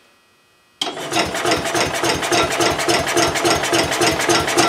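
Electric starter cranking a single-cylinder flathead small engine with a freshly replaced head gasket. It starts suddenly about a second in as a fast, even chugging of compression strokes. The engine turns over but does not fire, because the fuel valve is still shut off.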